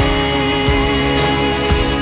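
Live band music: electric guitar and sustained chords over drum beats.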